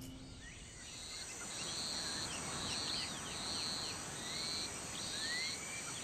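Birds chirping and calling in short high notes over a steady outdoor hiss, with a rising whistled note near the end.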